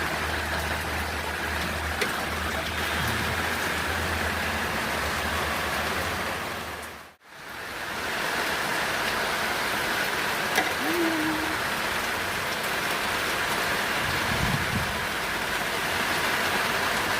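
Steady hiss like rain falling on a surface, with a low hum under it for the first half. The sound drops out briefly about seven seconds in, then the hiss carries on.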